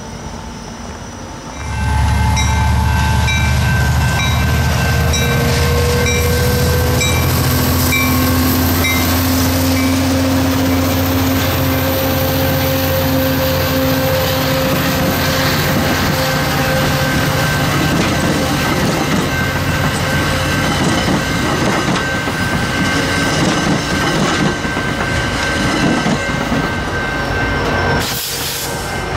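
AMT commuter train of bilevel coaches passing over a level crossing. A loud, deep steady hum starts about two seconds in as the train arrives, with the crossing bell dinging at an even rate for the first several seconds, then the rumble and clatter of the wheels going by.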